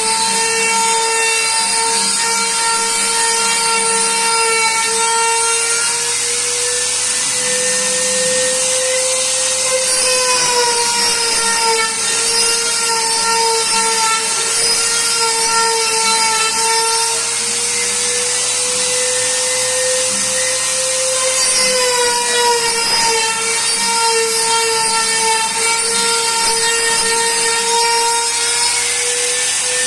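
CNC router spindle running through a cutting job: a steady high whine whose pitch drifts gently up and down, over a constant hiss.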